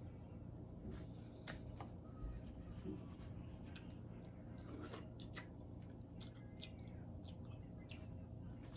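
Faint scattered clicks and crackles of king crab shell being cut and broken open while eating, over a steady low room hum.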